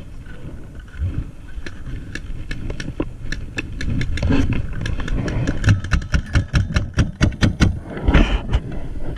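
Paintball markers firing: a string of sharp pops that quickens to several a second in the second half.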